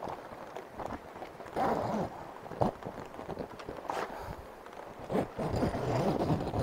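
Tent door being zipped and its fabric rustling and flapping in uneven bursts, with a few sharp clicks.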